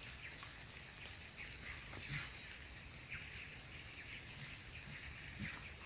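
Faint outdoor ambience: scattered short bird chirps over a steady, high-pitched insect drone.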